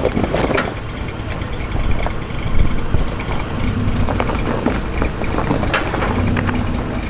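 Toyota Tacoma pickup crawling down a steep rocky drop-off, its engine running low and steady while the tyres crunch over rock. Scattered knocks and scrapes come as the truck strikes the rocks, the loudest about two and a half seconds in.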